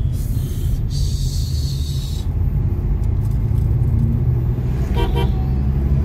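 Steady low rumble of engine and road noise inside a moving car's cabin, with a high hiss for the first two seconds. About five seconds in, a vehicle horn gives two quick toots.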